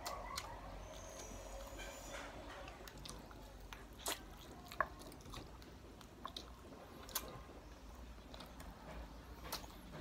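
Close-up eating sounds of crispy fried chicken: the skin crunching as fingers pull the meat apart, and wet chewing, with scattered sharp crunchy clicks, the clearest about four and five seconds in.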